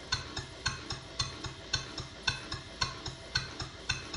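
Stuart Sirius model steam engine running on compressed air: a steady, even beat of sharp exhaust puffs and clicks, about four a second, alternating louder and softer.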